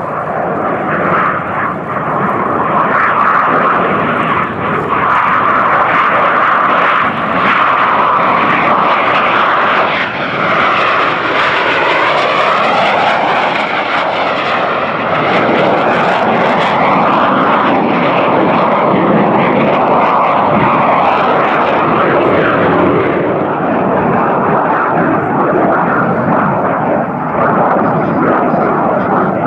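Loud, continuous jet noise of Aermacchi MB-339 PAN trainers, each powered by a single Rolls-Royce Viper turbojet, flying past low. The tone sweeps with a swirling whoosh about ten to fifteen seconds in.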